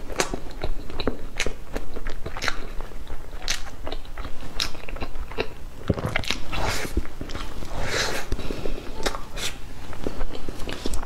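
Close-miked mouth sounds of eating soft cream cake off a spoon: chewing and lip smacks, heard as a string of short, sharp clicks.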